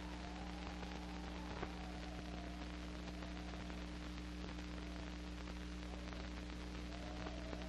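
Steady hiss and low mains-type hum of an old film soundtrack, with a single click about one and a half seconds in. A faint wavering tone fades out about a second in and comes back near the end.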